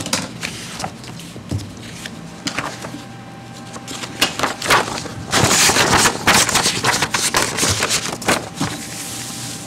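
Paper rustling and shuffling close to a table microphone, with scattered clicks and small knocks. It grows denser and louder from about five seconds in to near the end.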